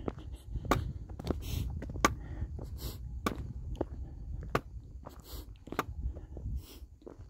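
A hiker's footsteps on a dirt and rock trail: sharp crunching steps, roughly one and a half a second, with scuffing between them and a steady low rumble underneath.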